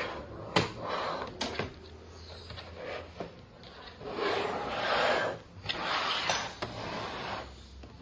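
Sheet-metal tray and cover of a rack-mount fiber optic patch panel being handled: two sharp metal clicks in the first second and a half, then two longer sliding scrapes as the tray slides out sideways.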